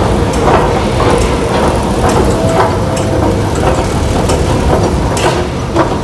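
Escalator running: a steady low rumble with a faint hum and scattered clicks from the machinery.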